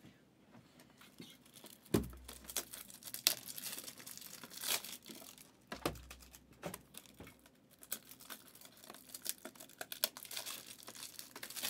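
Foil trading-card pack wrappers being torn open and crinkled, with a steady run of crackles and sharp ticks and a dull thump about two seconds in and again about six seconds in.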